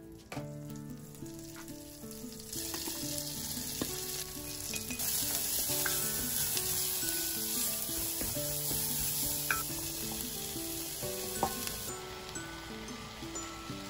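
Food sizzling in a hot pan: a hiss that sets in a couple of seconds in and is strongest in the middle stretch before easing near the end, with a few light clicks. Soft background music plays underneath.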